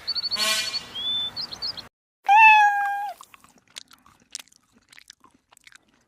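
Animal calls: short chirps give way, after a sudden cut about two seconds in, to one loud drawn-out cry on a steady pitch, followed by faint clicks.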